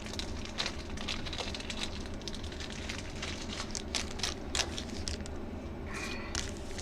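Foil trading-card pack wrappers crinkling and crackling as packs are torn open and handled: a quick, irregular run of sharp crackles over a low steady hum.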